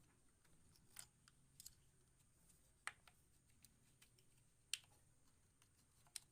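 A few faint, sharp clicks and taps, a second or two apart, against near silence: tools and metal parts being handled while a Stihl MS180 chainsaw engine is taken apart.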